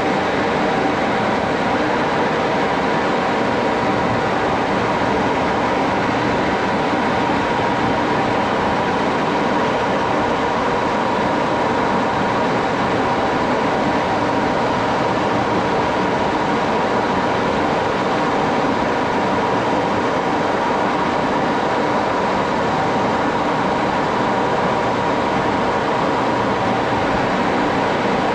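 Metal lathe running steadily, a constant mechanical whir with a few steady tones that does not change.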